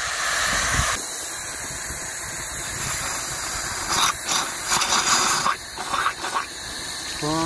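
Steam hissing steadily from the boiler of a Merryweather steam fire pump as its safety valve blows off at full pressure. The hiss changes about a second in, and a few clicks and knocks from brass valve handles come between about four and six seconds in, as the boiler-feed injector is started.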